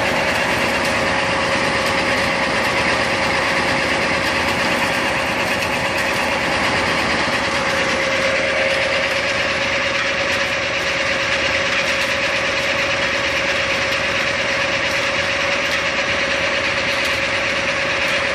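Engine-driven hazelnut harvesting machine running steadily, with a constant whining tone over its engine noise.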